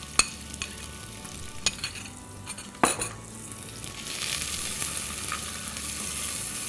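Sliced onion sizzling in hot oil and ghee in a pressure cooker, stirred with a silicone spatula. A few sharp clicks and a knock sound in the first three seconds, and the sizzle grows louder from about four seconds in.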